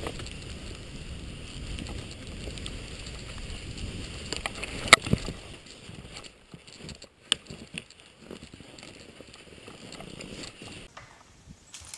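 Backcountry telemark skis sliding and swishing over snow, with wind rumble on the camera, louder in the first half and fading after about six seconds. A few sharp knocks stand out, the loudest about five seconds in.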